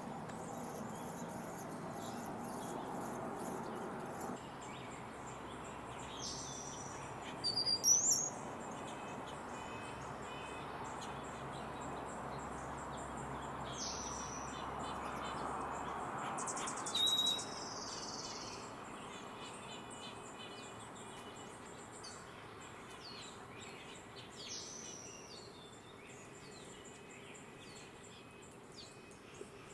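Hummingbird giving short, high, scratchy chirps, scattered through, the loudest about eight and seventeen seconds in, over a faint steady hiss of outdoor background noise.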